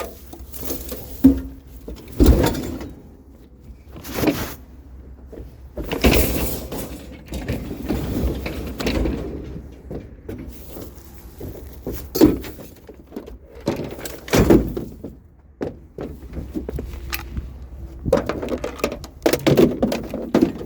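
Scrap metal being handled and loaded: a series of irregular clanks, thuds and rattles, the loudest about 2, 6, 12 and 14 seconds in.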